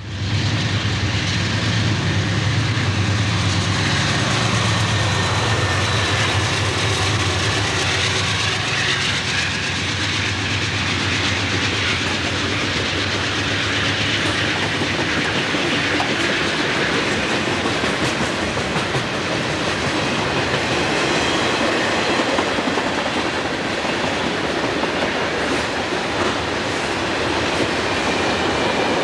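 A freight train led by CSX diesel locomotives passing close by. The locomotives' engines drone low over the first several seconds, then the freight cars roll past with a steady rumble and clickety-clack of wheels on rail joints.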